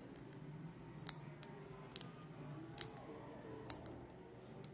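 Plastic flosser pick scraping and clicking inside a phone's charging port while digging out lint: sharp little clicks, about one a second.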